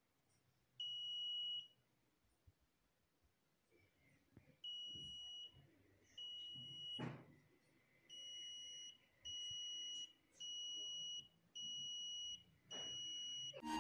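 A homemade long-range locator circuit's buzzer gives a series of steady high beeps, about eight in all, each just under a second long, coming more evenly in the second half. It is signalling a detection as a coin is held near its wire loop antenna. There is a single knock about seven seconds in.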